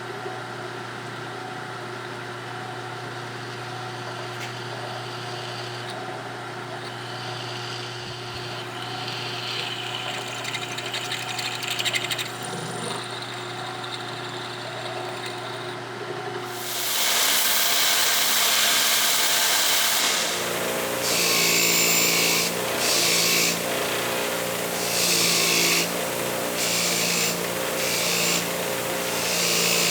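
A power tool's motor runs steadily with a constant hum. About halfway through, a much louder scraping, hissing noise starts and then comes and goes in several passes.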